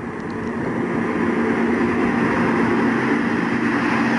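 A B-17 Flying Fortress's four Wright R-1820 radial engines droning as the bomber makes a very low pass. The sound builds over the first second, then holds loud and steady as the plane comes right overhead.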